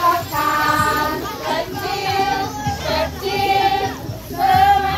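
Children singing with backing music, sung phrases with a few low drum thumps.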